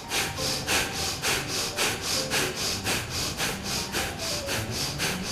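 Bhastrika pranayama (bellows breath): forceful, rapid breaths pumped in and out through the nose in a quick, even rhythm.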